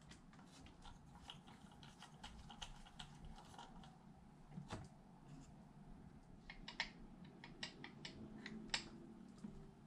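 Faint scattered clicks and light metal ticks of a hex driver turning the motor mount screws on an RC car chassis and small metal parts being handled, with a quicker run of clicks near the end.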